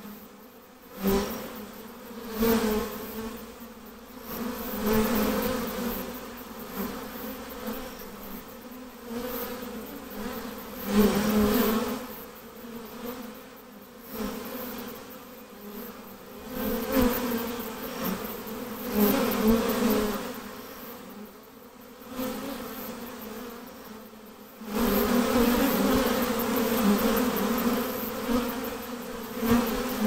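A honeybee swarm buzzing around a hive box as it is hived: a dense, steady hum that swells and fades every few seconds and grows louder near the end.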